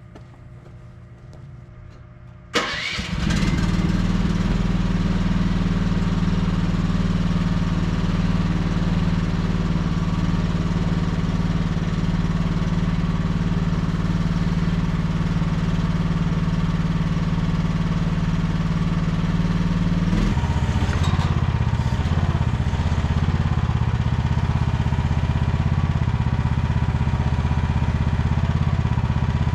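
Chinese 1-ton mini excavator's small engine starting about two and a half seconds in, then running steadily. About twenty seconds in, its note changes and it runs a little louder and rougher.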